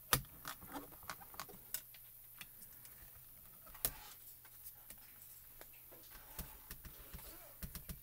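Scattered light clicks and taps of stamping supplies being handled: small plastic ink pad cubes and the stamping platform. The sharpest click comes right at the start, another about four seconds in.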